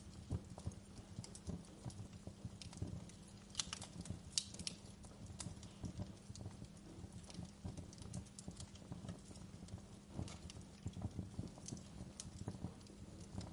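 Wood fire burning in a fireplace, crackling steadily with irregular pops and snaps over a low rumble of the flames; a few sharper snaps stand out about four seconds in.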